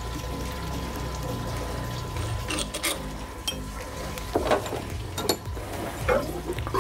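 Metal tools and fork parts clinking and clanking at a bench vise, with a handful of sharp knocks scattered through the second half over a steady low hum.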